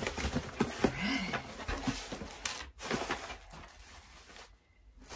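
A cardboard parcel being opened by hand: cardboard flaps, paper packing and a plastic-wrapped item rustling and crinkling, busiest in the first few seconds, then falling away.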